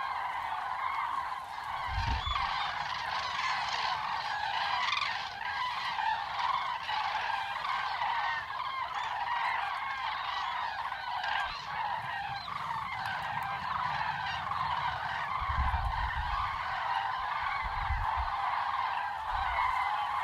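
A large flock of migrating birds calling, many honking calls overlapping into a continuous clamour. A few low thumps come about two seconds in and again near the end.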